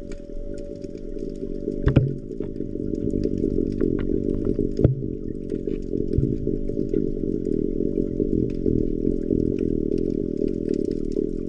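Underwater recording: a steady low rumble with a continuous hum, scattered faint ticks, and two louder sharp knocks, about two seconds in and about five seconds in.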